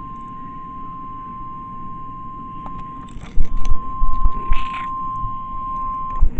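Weather radio receiver sounding its steady single-pitch warning alarm tone, the signal that an emergency alert follows; the tone stops shortly before the end. From about halfway through, loud knocks and bumps sit over it.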